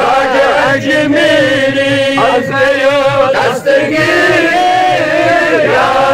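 Men's voices chanting a devotional manqabat in Kashmiri: a wavering sung melody over a steady held note.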